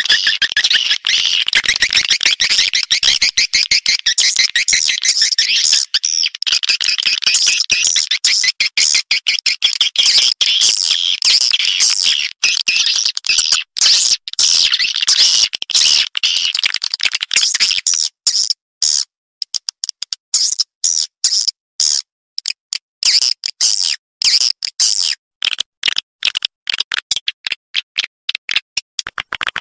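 Swiftlet lure-call recording played back: dense, high twittering chatter of edible-nest swiftlets mixed with rapid clicks. It is continuous at first, then breaks into short bursts with brief gaps from a little past the middle. Sound of this kind is broadcast from swiftlet houses to call the birds in to roost and nest.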